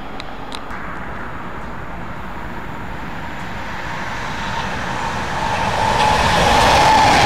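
Electric commuter train approaching on the track, its rumble growing louder over the last couple of seconds as it nears. A high whine, likely from its electric traction motors, rises in loudness and drops slightly in pitch.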